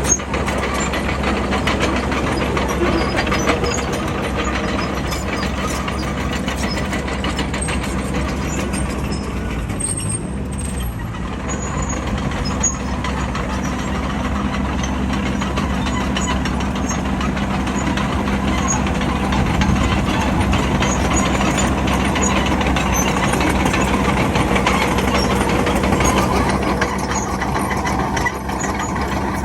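Bulldozer's diesel engine running steadily under work, with a low, constant drone.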